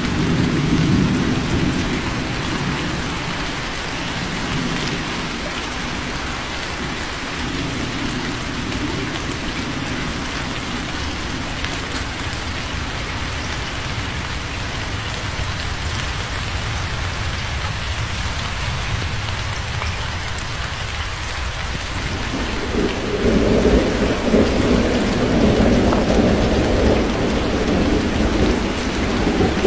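Steady heavy rain with rolling thunder: a low rumble at the start fades out, and a louder rumble of thunder builds about three quarters of the way through and carries on.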